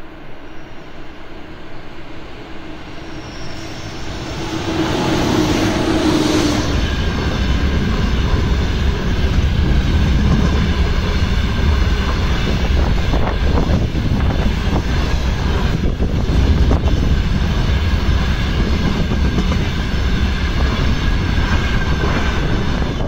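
Freight train hauled by a VR Sr2 electric locomotive passing below. The locomotive goes by with a louder humming tone about five seconds in, then the empty open-top freight wagons roll past with a steady heavy rumble and scattered wheel clicks on the rail joints.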